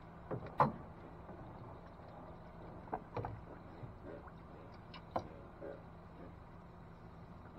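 A few sharp knocks and clunks on a boat, the loudest about half a second in and others around three and five seconds, over a steady low hum.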